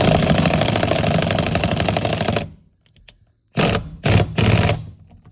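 Pneumatic impact wrench with a 21 mm socket hammering a seat belt bolt down in one long run of about two and a half seconds. It then gives three short bursts about a second later to snug the bolt tight.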